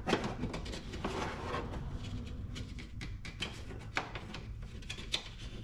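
Soft rubbing and scattered small clicks as a plastic wheel-well liner is pulled down and worked by hand.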